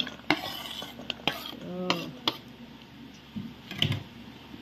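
Wooden cutting board knocking and scraping against a stainless-steel mixing bowl as diced cucumber is pushed off into it: a handful of separate sharp knocks and clinks.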